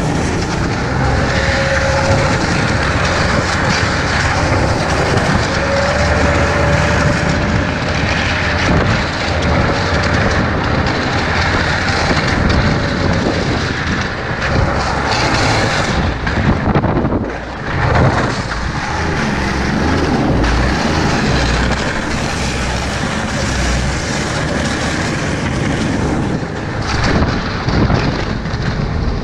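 Ski-Doo snowmobile engine running steadily as it travels over snow, mixed with wind rushing over the microphone.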